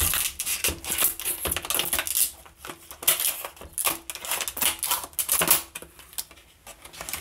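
Scissors cutting through a stiff clear-plastic blister pack: an irregular run of sharp snips and crackles of the plastic, easing off in the middle and picking up again.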